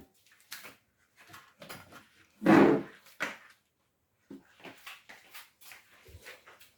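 Rummaging and handling noises: scattered small clicks and rustles, with one louder scrape or knock about two and a half seconds in, typical of a drawer or cupboard being searched.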